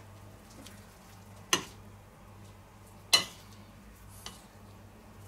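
A spoon clinks sharply twice against a ceramic plate of batter, about a second and a half apart, as a fritter is dipped and coated. A faint steady low hum lies underneath.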